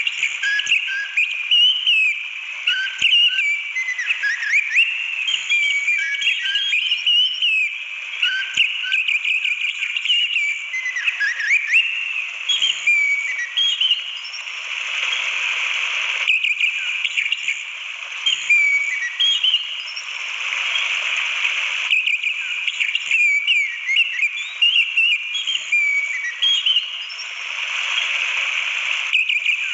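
Orange-headed thrush singing in runs of quick, varied whistled phrases that glide up and down, over the steady rush of a waterfall. The song breaks off a few times, leaving only the water.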